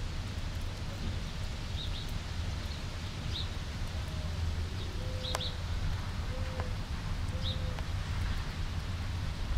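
Wind rumbling on the microphone outdoors ahead of a thunderstorm, with a few short bird chirps scattered through it.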